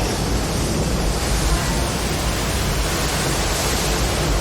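Steady, even rushing of water with a low rumble underneath.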